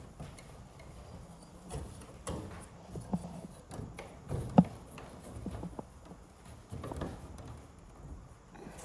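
Scattered knocks and clicks of hands working a greenhouse roof vent opener and its adjusting nut, with one sharp knock about halfway through.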